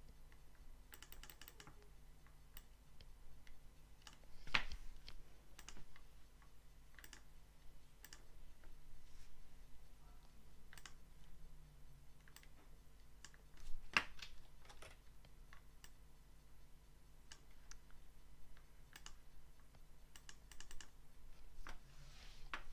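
Scattered clicks of a computer mouse and keyboard during digital drawing, with two louder clicks, one a few seconds in and one past the middle, over a faint steady hum.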